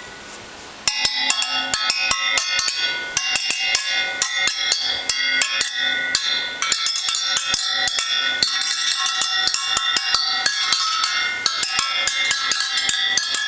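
Music with a fast, busy percussive beat and bell-like ringing tones, starting abruptly about a second in.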